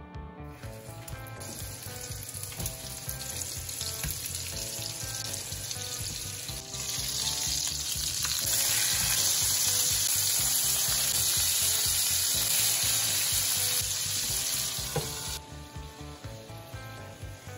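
Burger patties frying in hot oil in a skillet, a steady sizzle. It grows much louder about seven seconds in and cuts off suddenly about fifteen seconds in.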